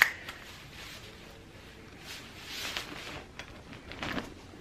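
Compact folding umbrella handled and opened: rustling of the nylon canopy as it is pulled from its sleeve and unfurled, then a short burst of noise about four seconds in as the canopy springs open.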